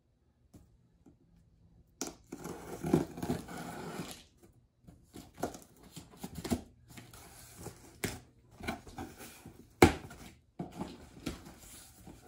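Scissors slitting the packing tape on a cardboard shipping box, then the tape and cardboard flaps being pulled open, rustling and scraping. Short sharp snaps come through it, the loudest a single crack about two seconds before the end. The first two seconds are nearly silent.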